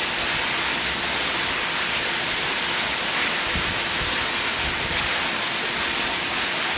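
Steady rush of falling, splashing water, even and unbroken, with a faint steady hum underneath.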